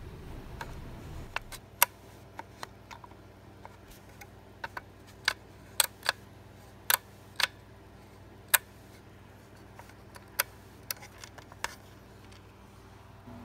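Irregular sharp plastic clicks and taps from fingers handling the motor mount, pulley and rubber drive belt of a plastic phonograph kit.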